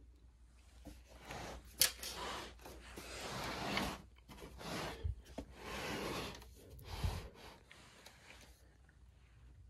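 A heavy stereo receiver-amplifier being handled and turned around on carpet: irregular rubbing and scraping, a sharp click about two seconds in, and dull low thumps around five and seven seconds in.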